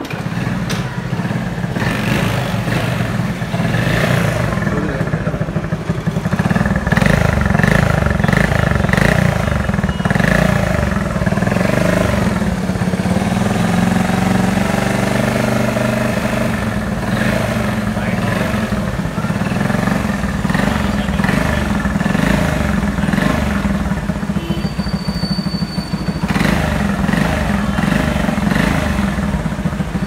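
Engine of a 1984 Honda 50cc step-through motorcycle, a 49 cc single-cylinder four-stroke, running steadily through its original silencer.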